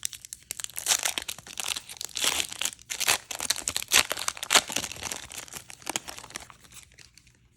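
Foil trading-card pack wrapper being torn open and crinkled: a dense run of crackles that thins out near the end.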